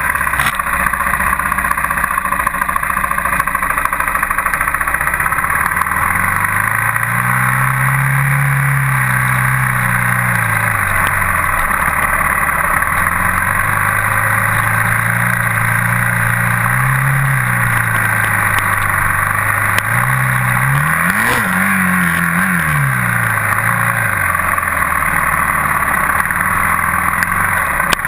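Dirt bike engine running under way, its pitch rising and falling with the throttle, with one sharp rev and drop about three-quarters of the way through. A steady hiss runs underneath.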